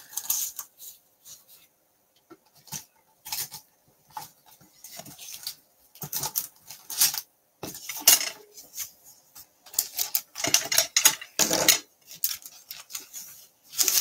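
Paper and cardstock being handled on a craft table: irregular rustles, taps and clicks, busier in the second half.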